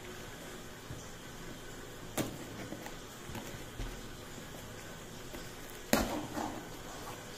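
Handling noises from a tape-wrapped cardboard parcel being cut open with a knife: two sharp knocks, about two seconds in and about six seconds in, the second the louder and followed by a short crackle of tape and cardboard.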